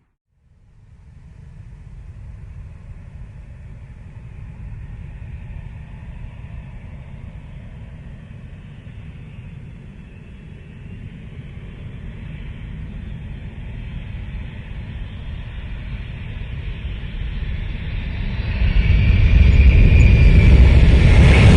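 Fighter jet approaching: a low rumble that grows slowly louder, then surges much louder near the end, with a high engine whine coming in.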